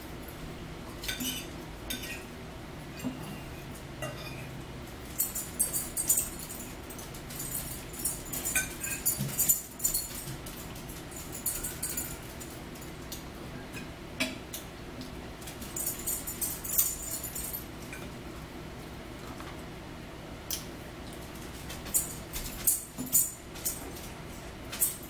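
Forks clinking and scraping on plates during a meal, in three clusters of high, jingly metallic clinks with scattered small taps and chewing between them.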